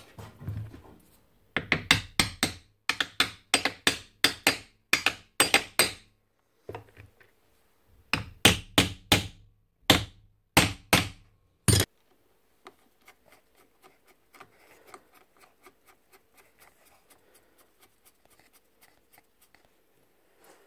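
Hammer tapping a new, heated bearing onto the motor shaft of a Dewalt DW718 miter saw. Two runs of sharp blows about three or four a second, the second ending in one harder blow, then only faint light taps.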